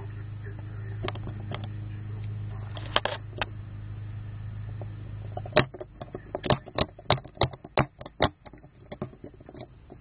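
Aluminium-and-steel handcuffs being worked by hand: a few metal clicks, then a run of about a dozen sharp clicks, roughly three a second, in the second half. A low steady hum stops about halfway through.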